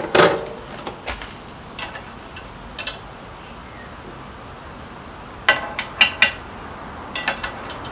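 Steel pieces clinking and knocking against a metal vise as they are handled and set in its jaws. The clinks come in scattered single strikes early on, a group of three a little past halfway, and a few quick ones near the end.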